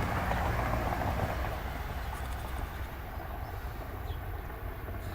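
Steady low outdoor rumble, with a hiss that fades during the first second or two.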